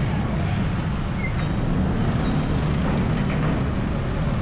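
Congested road traffic: the engines of cars, a dump truck and motorcycles idling and creeping past, with motorcycles going by close, making a steady low rumble.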